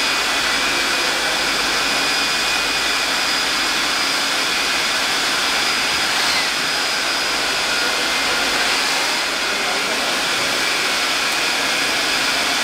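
Steady, loud rushing machine noise with faint high-pitched whines running through it: racing pit-garage ambience.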